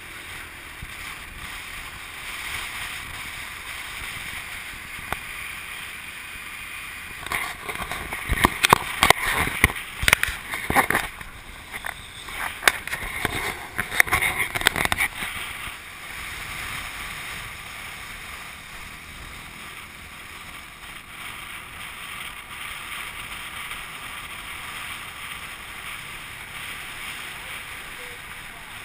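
Steady rush of wind and road noise from the back of a moving motorbike, with loud irregular crackling and buffeting on the microphone from about seven to fifteen seconds in.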